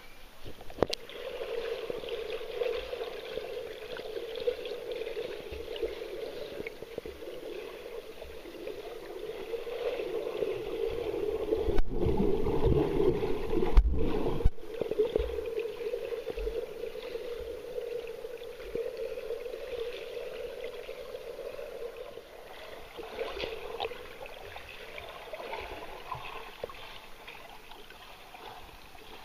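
Muffled water sloshing and gurgling around a camera moving at and just below the surface. It grows louder and heavier with a deep rumble near the middle, cutting out briefly twice.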